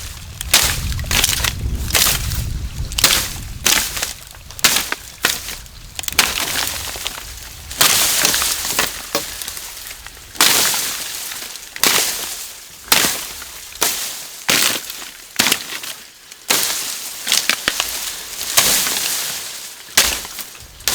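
A series of sharp crunching, scraping strokes, about one a second. A low rumble lies under them for the first few seconds.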